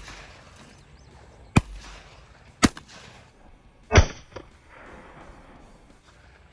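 Three sharp gunshots about a second apart, the loudest near four seconds in: the blast of a 12-gauge pump-action shotgun.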